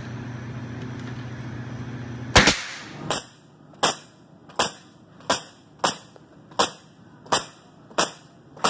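Jaaco NailPro NPCN-8350 pneumatic coil roofing nailer firing nails into an upright panel. It fires one sharp shot about two seconds in, then a steady run of about nine shots, one every 0.7 s or so. A steady low hum fills the first two seconds.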